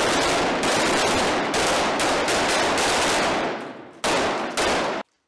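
Rapid, overlapping gunfire from several C8 5.56 mm carbines fired at once, a dense string of shots that thins out near the end, with a last couple of shots before it stops suddenly.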